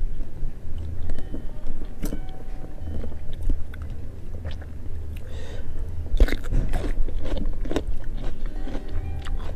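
Close-up chewing and biting of food by hand-eating diners, with scattered crisp crunches, busiest a couple of seconds before the end.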